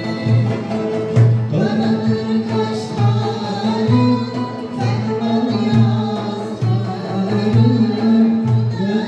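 Turkish folk song played live: a woman singing over two plucked bağlamas (long-necked saz lutes), with a frame drum and a darbuka (goblet drum) keeping a steady beat.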